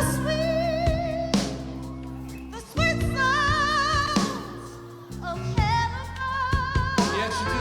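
Live rock band playing a slow, gospel-tinged ballad. A singer holds long notes with wide vibrato over sustained chords and bass, the band easing off briefly twice.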